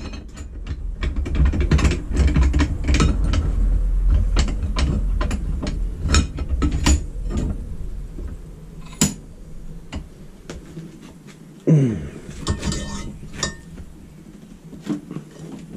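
Irregular clicks, knocks and clatter of a steel workpiece and tools being handled on a workbench, heavier in the first half, with a brief sliding sound falling in pitch about twelve seconds in. The circular saw is not running.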